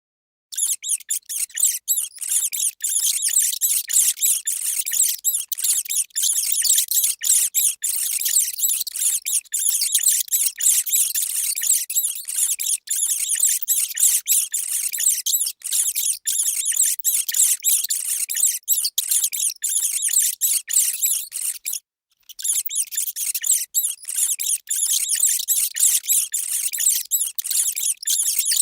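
Rats squealing and squeaking in a frantic, aggressive rat-attack sound effect: rapid high-pitched squeaks packed tightly together, with a brief break about 22 seconds in.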